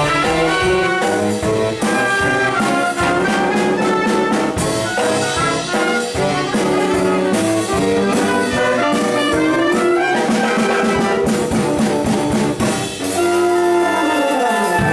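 A school pit band of saxophones, woodwinds and trumpets rehearsing a jazzy, brass-led show tune with many quick notes.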